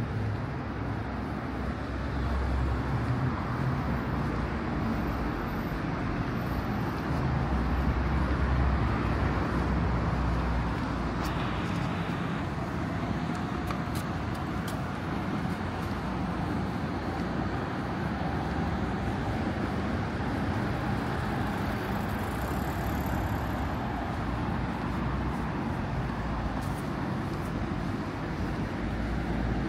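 Street traffic noise: cars passing on a city road, a steady rumble and hiss with no single event standing out.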